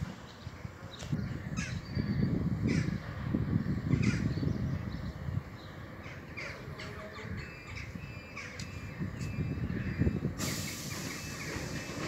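Crows cawing repeatedly over the low running of a stationary EN57 electric multiple unit. A sudden hiss of compressed air comes from the train about ten seconds in.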